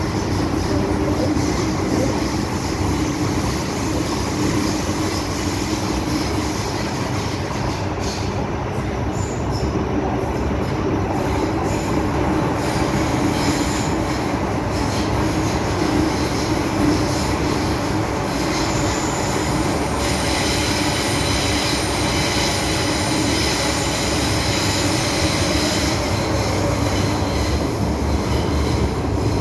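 MTR M-Train metro car running at speed, heard from inside the car: a steady, loud rumble of wheels on rail. High-pitched wheel squeal joins in about two-thirds of the way through, as on a curve.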